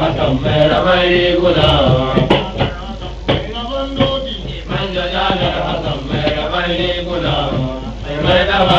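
Hausa praise song: a male voice chanting a sung line over music, with short drum-like strikes every second or so.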